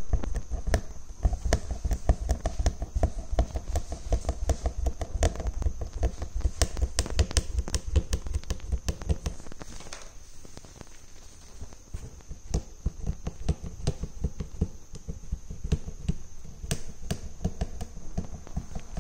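Embroidery needle stabbing in and out of fabric stretched taut on a wooden frame: a rapid, uneven run of soft taps and thumps, several a second, as beads are stitched on.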